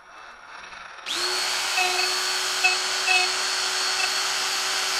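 Hercules quarter-inch electric die grinder, mounted as a lathe tool post grinder, switched on about a second in and then running at steady high speed with a steady whine. A few short chirps sound over it between about two and four seconds in.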